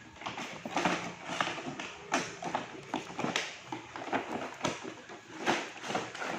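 Toy box packaging being opened and handled: irregular crackling, rustling and tapping, several sounds a second.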